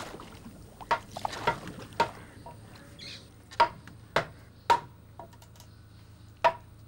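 Hand tools knocking on a wooden drum shell as it is being worked: sharp wooden knocks, about two a second in short groups with pauses between them, about eight in all.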